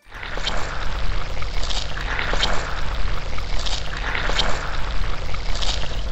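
Car-wash sound effect: a rotary brush scrubbing the car amid rushing water over a steady low machine hum, with repeated swishes. It starts abruptly.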